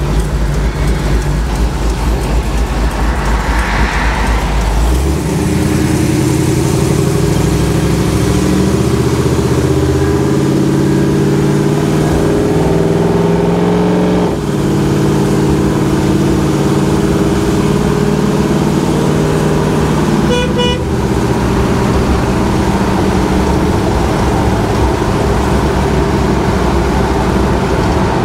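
Old Divco milk truck on the move, heard from inside its cab: a loud engine drone with steady pitched tones over wind and road noise, heavy low rumble in the first few seconds.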